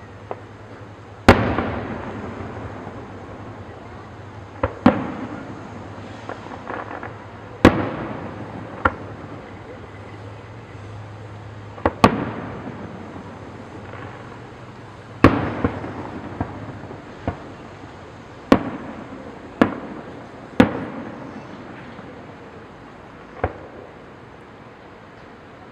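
A fireworks display: about a dozen sharp bangs at irregular intervals, a few seconds apart and sometimes closer, each trailing off in a fading rumble.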